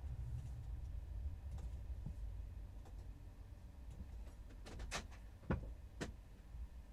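A low steady rumble inside a van, with a handful of sharp clicks and knocks near the end, the loudest a single knock.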